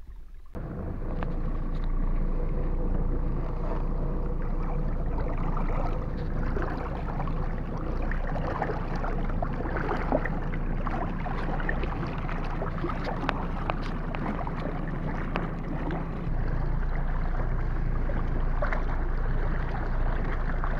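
Water splashing and sloshing close against a boat's hull, a steady wash with many small sharp splashes, as a large speared amberjack thrashes on a line beside the boat.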